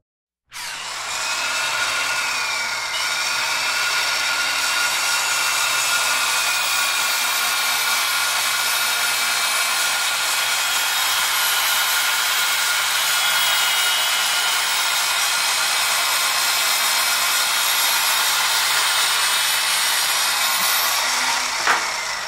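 Table saw running with its blade cutting into a thick paper phonebook, a steady whine over noisy grinding. Near the end a sharp knock is heard, and the whine falls away as the blade slows.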